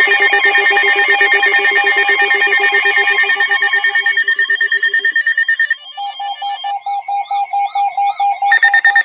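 Several electronic alert tones pulsing rapidly at once, with a ringing, trilling quality. They drop out one by one about four to six seconds in, leaving a single pulsing tone, and another tone joins near the end.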